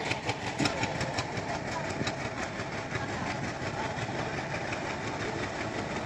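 Train running on the rails with a steady rumble, a rapid run of clicks (about five a second) fading out over the first few seconds.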